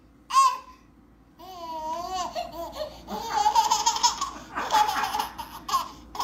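A baby laughing: a short squeal, then a wavering high cry, then laughter in quick repeated bursts.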